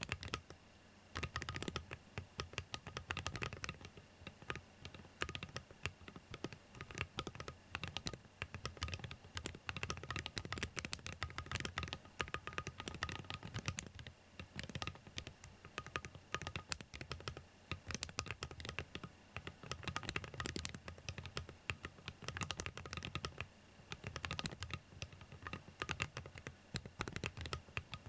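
Gravity45 mechanical keyboard fitted with Awekeys Wild Ice metal keycaps, typed on continuously: a rapid, steady run of key clacks with a few short pauses.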